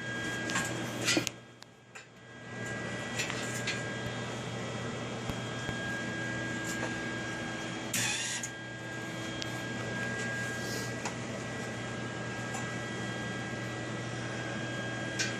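Steady mechanical hum with a constant high whine, broken by a few brief clattering noises and a short hiss about eight seconds in.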